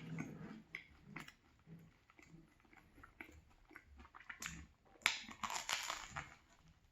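Close-miked chewing of a crusty banh mi sandwich, with small crackles of the bread, and a louder crunchy stretch about five seconds in.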